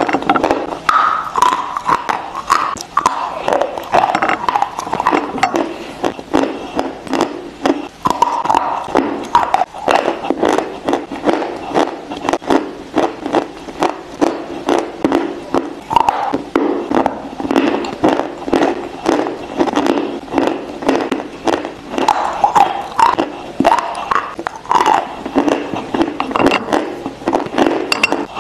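Close-miked crunching and chewing of dry chalk blocks: a constant run of sharp, brittle crackles as the pieces are bitten and ground between the teeth.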